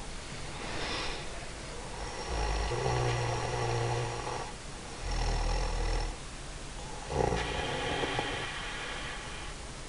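A woman snoring in her sleep: about four snoring breaths a few seconds apart, some with a low drone.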